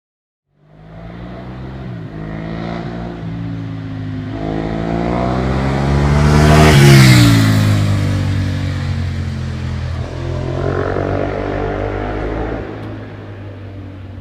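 Ducati 1098S L-twin motorcycle accelerating past, its pitch climbing with two short breaks as it shifts up. It grows louder to a peak about seven seconds in, then drops in pitch and fades as it goes away.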